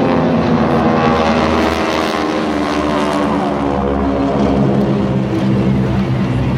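Radial piston engines and propellers of a six-ship formation of T-6 Texans running loud and steady as they pass overhead, their pitch sliding down about halfway through as the formation goes by.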